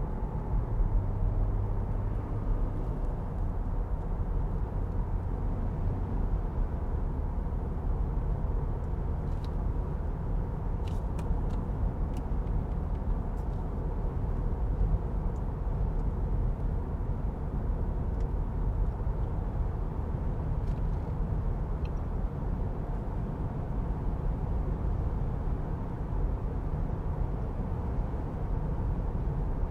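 Steady tyre and road noise with a low rumble inside the cabin of a 2023 Jeep Grand Cherokee L while it drives on pavement.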